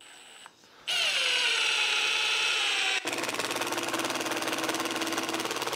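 Milwaukee M18 Fuel Gen 4 cordless impact driver driving a long screw into stacked lumber. After a second, the motor whines up and sags slightly in pitch as it takes the load. About three seconds in, the hammer mechanism kicks in and it impacts rapidly and steadily as the screw seats deeper.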